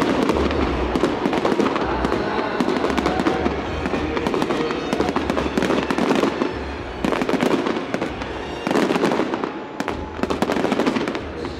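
Fireworks bursting with dense, rapid crackling, several louder crackling volleys coming in quick succession.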